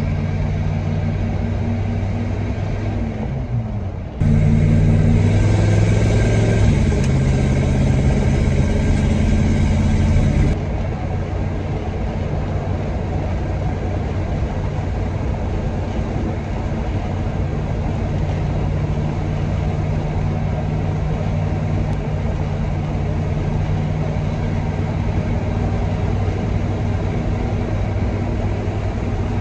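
Truck engine running steadily while on the road. Between about four and ten seconds in it is louder, and its note steps up and down before dropping back to the steady drone.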